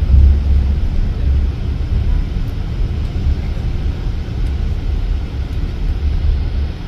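Low, steady rumble of an Irizar i6S Efficient coach on the move, heard from inside the passenger cabin: engine and road noise, a little louder for the first second or so as a lorry passes alongside.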